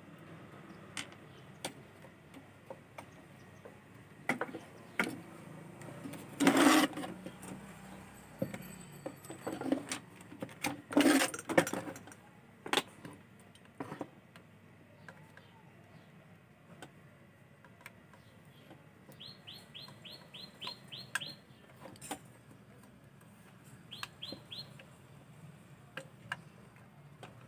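Scattered clicks and handling noises at a soldering bench while a switching regulator is desoldered from a TV power-supply board, with two louder noisy bursts about a third and two-fifths of the way in. Past the middle a bird gives a quick run of about ten short high chirps, then three more a few seconds later.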